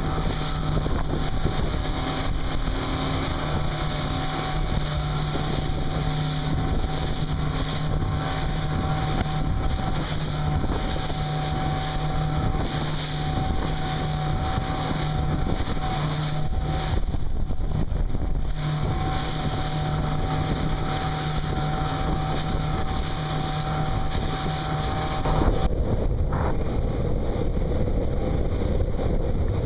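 Suzuki 175 outboard motor running steadily as the Pro-Line 20 Sport goes under way, a constant engine hum under heavy wind noise on the microphone and water rushing along the hull. About four seconds before the end the engine hum fades out beneath louder wind and spray.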